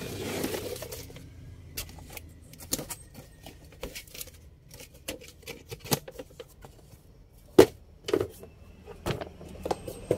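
Cardboard toy boxes being handled. A rustle of cardboard in the first second is followed by scattered taps and clicks, with a few sharper knocks about six and seven and a half seconds in.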